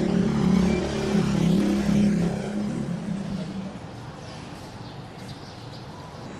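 A motor hums, loud for about three seconds and then fading away.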